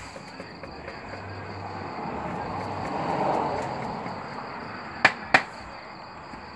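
Broad-bladed knife chopping small fish on a cutting surface: two sharp chops about a third of a second apart, about five seconds in. Before them a rushing noise swells and fades, over a steady high chirring in the background.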